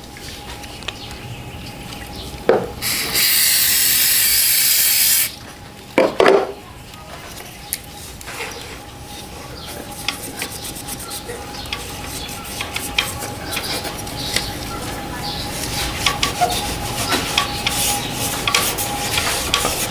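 Aerosol throttle body cleaner sprayed in one hiss lasting about two and a half seconds, then the throttle plate being scrubbed and wiped clean, a long stretch of rubbing with small clicks and scrapes.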